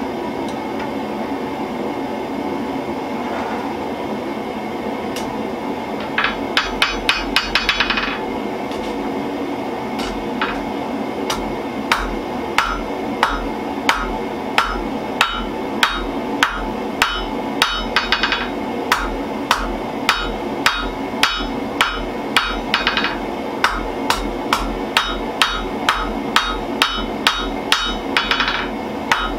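Hand hammer forging red-hot spring steel on an anvil for a knife blade, over the steady roar of the gas forge. A few seconds in comes a quick run of light ringing taps, then steady blows about one a second, with short rapid runs of lighter taps between them.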